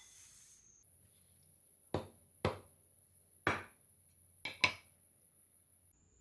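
Five sharp knocks on a hard surface, unevenly spaced, the last two in quick succession.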